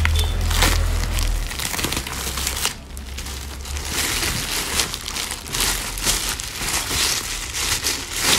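Plastic packaging bags handled and pulled open around a football boot: a continuous rustle of thin plastic, with a short lull about three seconds in.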